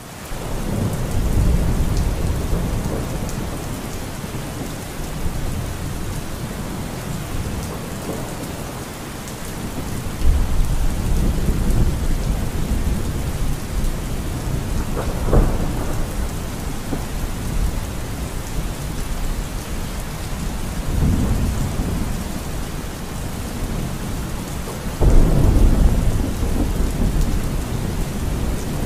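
Thunderstorm sound: steady rain hiss with rolls of thunder swelling several times. The loudest roll comes about 25 seconds in.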